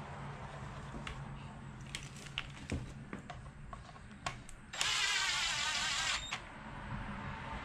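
A 20-volt cordless driver spins a timing-belt cover bolt into a Honda D16 engine in one burst of about a second and a half that stops abruptly. A few light clicks of handling the tool and bolts come before it.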